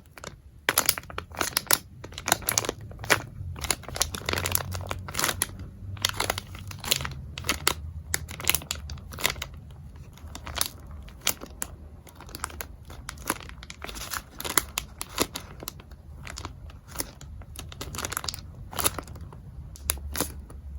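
Squishy packaging crinkling and rustling as it is handled, with a steady run of sharp crackles and small tearing sounds.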